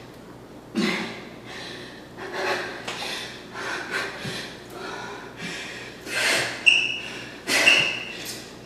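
A woman's hard, rhythmic breathing during a bodyweight HIIT exercise, a sharp breath about once a second, with soft thumps of bare feet landing on the mat. Near the end come two short high beeps about a second apart, an interval timer counting down to the end of the set.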